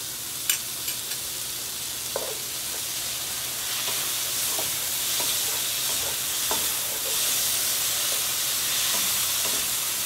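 Mushrooms, shallots and garlic sizzling in olive oil in a hot skillet, a steady hiss that grows a little louder about four seconds in. A few light taps of the stirring utensil on the pan.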